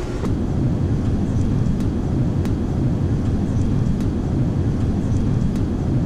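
Steady low rumble of an Airbus A380 airliner's cabin noise, the engines and airflow heard from a passenger seat, with a few faint clicks.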